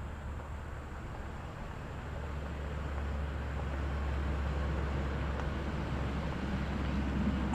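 Pickup truck on the move: a steady low engine and road rumble with tyre and wind hiss, growing louder from about two seconds in.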